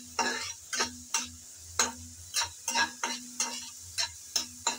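Spatula scraping and knocking against a metal kadai as chopped onions are stirred and lightly fried in hot oil, in short irregular strokes about two a second over a faint sizzle.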